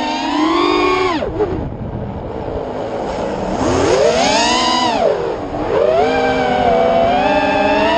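FPV racing drone's brushless motors and propellers whining, the pitch rising and falling with the throttle. It climbs to a high peak about halfway through, drops sharply, then holds a steadier mid-pitch that rises again near the end.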